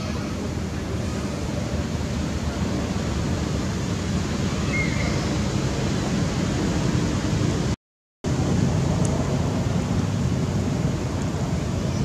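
Steady low rumble and hiss of outdoor background noise, with no animal calls standing out, broken by a brief gap of total silence about eight seconds in.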